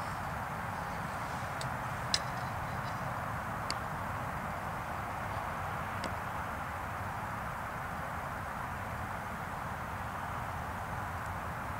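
A vehicle engine idling: a steady low rumble and hiss, with a couple of faint clicks about two and four seconds in.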